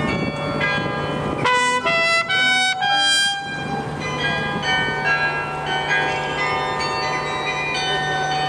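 A trumpet playing along with the bells of the Westerkerk carillon. The loudest notes are a short run of trumpet notes about a second and a half to three seconds in, while the carillon's bells ring throughout.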